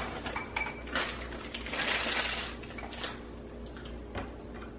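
Foil-wrapped Hershey's Kisses candies poured from a plastic bag, rattling and clinking into a small glass candy jar; the pouring is thickest about two seconds in, then thins to a few single clicks as the jar is handled and set on the tray.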